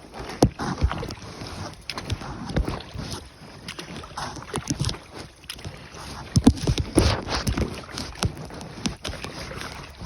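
Canoe paddling: the paddle dipping and pulling through the water, with splashing and dripping. Irregular knocks and rubbing sit close to the microphone, which is a phone in a waterproof case hung around the paddler's neck.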